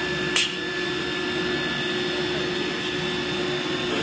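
Twin-spindle nesting CNC router running, a steady mechanical whine made of several held tones over a constant machine hum. A brief sharp burst of noise, the loudest moment, comes about half a second in.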